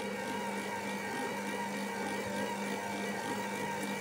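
Electric stand mixer running steadily at low speed, its attachment turning and kneading soft yeast dough in a stainless steel bowl: an even motor hum.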